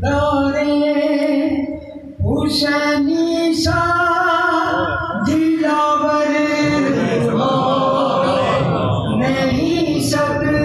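A man singing a manqabat, an Urdu devotional poem, unaccompanied, in long drawn-out, wavering phrases. He breaks off briefly about two seconds in.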